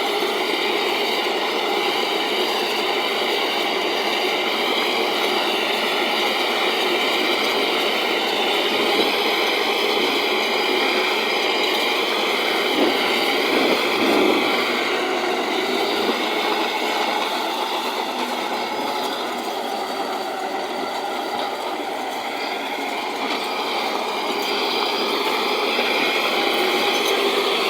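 Tractor engine running steadily under load while pulling a plough. It eases off a little past the middle and builds again near the end.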